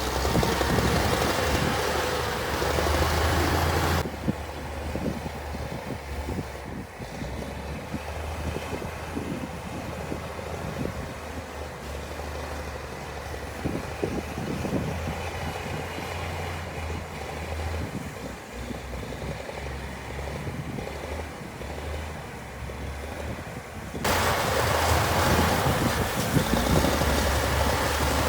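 Heavy construction machine's diesel engine running steadily with a deep rumble. About four seconds in the sound turns duller and quieter, and near the end it comes back louder and fuller.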